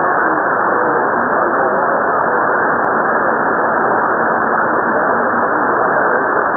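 Steady static hiss from a CB receiver tuned to lower sideband on channel 38 (27.385 MHz), heard in a gap between transmissions.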